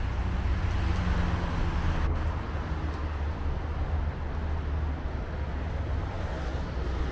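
Street traffic: cars on the road beside the sidewalk, a steady low rumble with tyre noise, a little louder in the first couple of seconds.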